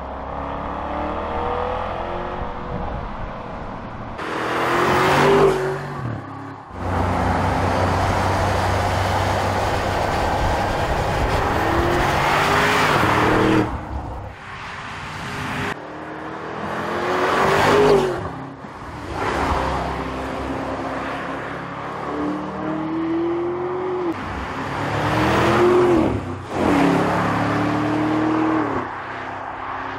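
Audi SQ-series SUV with a twin-turbocharged V8 driving past several times. The engine note rises as it accelerates by, and each pass brings a loud swell of exhaust and tyre noise.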